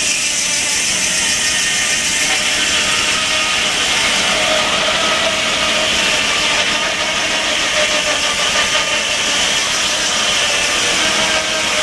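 Circular sawmill running steadily, powered by a 65-horsepower steam traction engine; a loud, even rushing noise with a faint steady whine.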